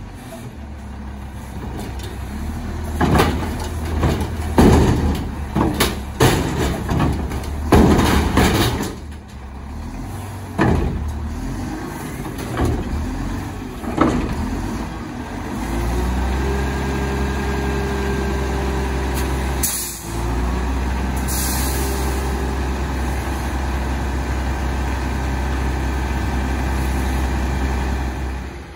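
Mack LE front-load garbage truck's diesel engine revving under hydraulic load as the Curotto Can arm lifts, with a series of loud knocks and clanks from the arm and can in the first half. Then the engine is held at steady high revs with a hydraulic whine while the can is raised over the cab, broken by short air hisses about two-thirds through.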